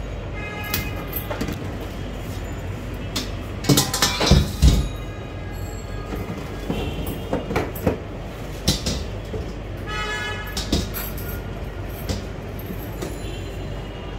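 Eggs clinking and a stainless steel basket and colander clattering in a steel sink, with a burst of metal knocks about four seconds in and short ringing clinks later. A steady low rumble runs underneath.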